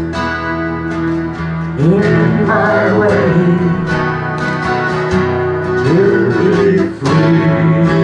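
Acoustic guitar strummed under singing, the voice sliding up into long held notes about two seconds in and again near six seconds, with a brief break in the strumming near the end.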